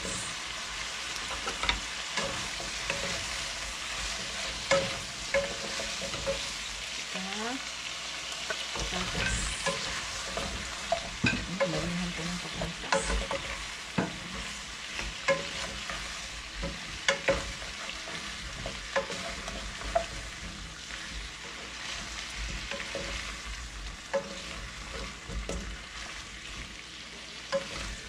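Chicken pieces, carrots and potatoes sizzling as they fry in a pan, stirred with a wooden spatula that knocks and scrapes against the pan at irregular moments.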